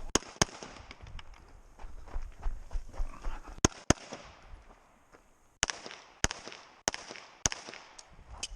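Gunshots on a practical shooting stage: a quick pair, another pair a few seconds later, then a string of single shots about every half second, each with a short echoing tail. Rustling movement sounds lie between the shots.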